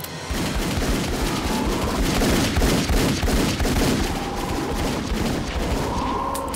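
Rapid two-handed pistol fire in a film action scene: a dense, unbroken volley of shots that stops suddenly at the end.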